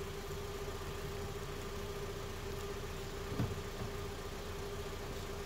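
2017 Mitsubishi Lancer's four-cylinder engine idling steadily, a low even rumble with a constant hum over it, and one soft knock about three and a half seconds in.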